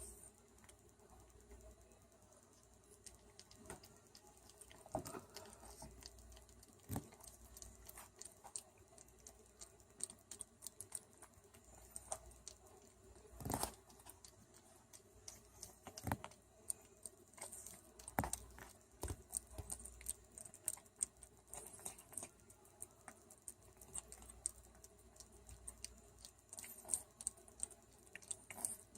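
An animal sniffling, with faint irregular snuffles and small clicks throughout and a few louder sniffs, the strongest about halfway through.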